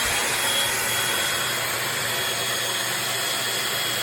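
Eureka corded stick vacuum's motor running steadily, a loud even rush of air with a thin high whine over a low hum.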